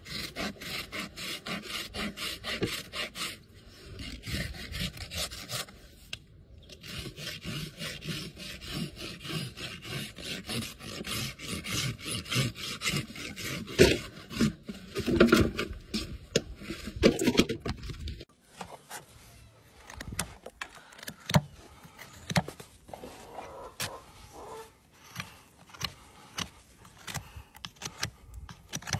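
Farrier's hoof rasp filing a horse's hoof wall in rapid, continuous back-and-forth strokes. After about 18 seconds the rasping stops and gives way to quieter, scattered clicks and taps.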